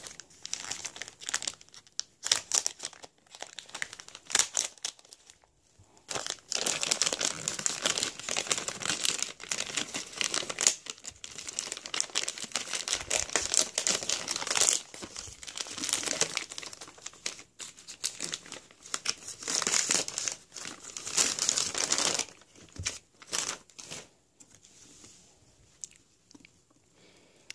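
Plastic poly mailer being cut open, then crinkling and tearing as it is ripped apart and a hardcover book is pulled out. The first few seconds are scattered sharp clicks and rustles; steady dense crinkling follows and dies down near the end.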